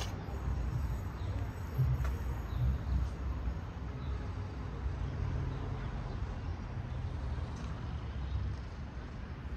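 Low, steady outdoor background rumble with a sharp click at the very start and a couple of faint ticks a few seconds in.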